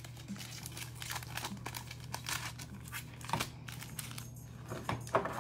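Plastic trading-card pack wrappers crinkling and tearing as packs are opened and handled, a run of quick irregular crackles.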